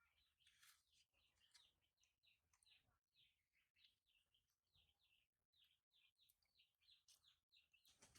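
Very faint birds chirping: quick, high, falling chirps, several a second, continuing throughout.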